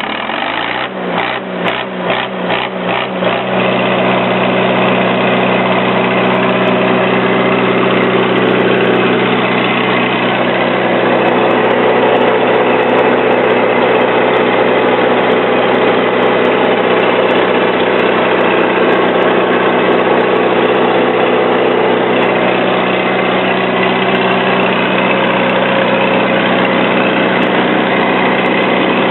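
Four-cylinder White diesel engine of a 30 kW standby generator set, just started. It pulses unevenly for the first three seconds or so as it settles, then runs steadily at a constant governed speed.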